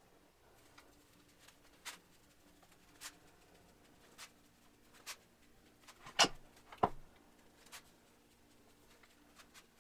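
Hand wrench clicking and clinking against the cast-iron parts of a Bridgeport milling machine as bolts are worked loose: a handful of separate sharp clicks about a second apart, the two loudest about six and seven seconds in, over a faint steady hum.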